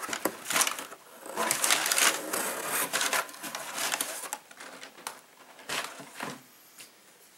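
Brown kraft packing paper rustling and crinkling as hands dig through a cardboard box, busiest in the first four seconds, then a few light taps and handling noises.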